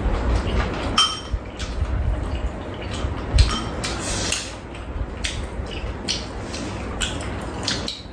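Metal spoons clinking and scraping against ceramic bowls as two people mix and scoop food, in irregular taps with one sharper knock about three and a half seconds in.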